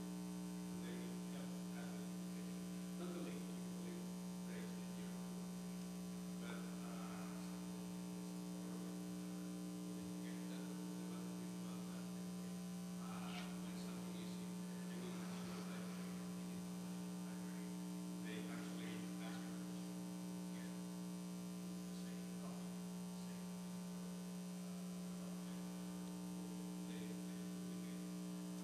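Steady electrical mains hum in the recording chain: a strong low drone with many fainter higher steady tones above it. Faint, distant speech comes and goes underneath.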